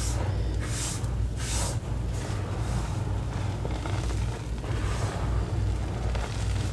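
Hands pressing into and scooping a heap of crushed reformed gym chalk powder (gym chalk and cornstarch), making soft crunching and rustling. There are two brighter swishes about a second and a second and a half in, all over a steady low rumble.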